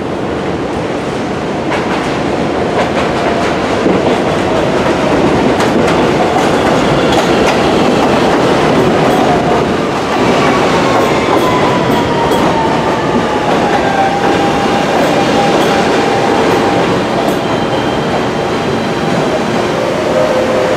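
New York City subway train pulling into an elevated station, its wheels clattering over the rail joints with scattered clicks. About halfway through, a whine falls in pitch as the train slows alongside the platform.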